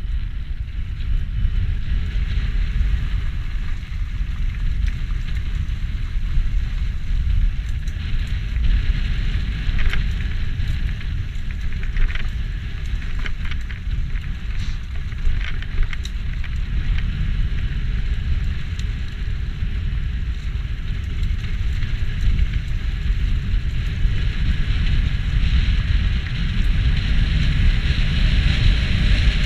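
E-mountain bike ridden down a forest singletrail: steady wind rumble on the microphone over the crackle of tyres on dirt and stones, with many sharp clicks and rattles from the bike over rough ground midway through.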